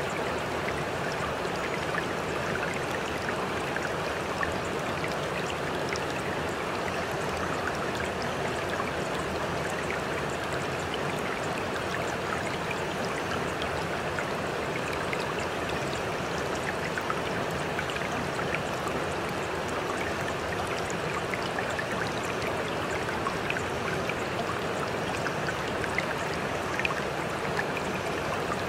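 Steady sound of running water, like a flowing stream: an even rushing noise with fine splashes that does not change.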